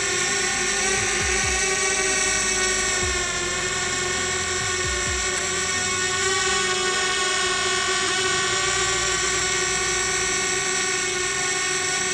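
DJI Spark quadcopter in flight: its motors and propellers give a steady high whine of several tones at once, the pitch wavering slightly. A few brief low thumps sound in the first five seconds.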